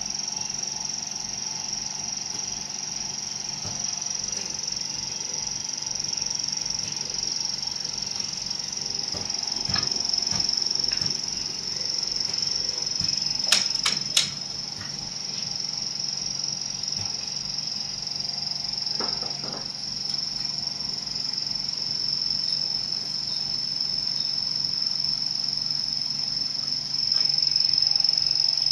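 A steady high-pitched whine over a low hum, with a quick run of two or three sharp clicks about halfway through as hands handle parts of a pad printing machine.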